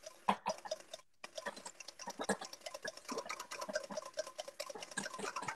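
Wire whisk beating egg yolks in a bowl into a sabayon, the base for hollandaise: rapid, uneven clicking of the wires against the bowl. The sound cuts out for a moment about a second in.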